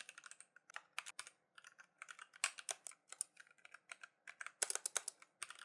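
Quiet, irregular keystrokes on a computer keyboard as a line of code is typed.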